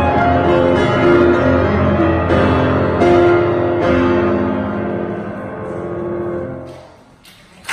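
Piano playing sustained chords that die away about seven seconds in as the piece ends. A sudden burst of noise starts just before the end.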